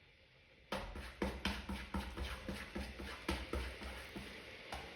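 Sphynx cat knocking its paw against a cardboard box as two cats scuffle in it: a quick run of irregular taps and thumps, about three a second, starting about a second in.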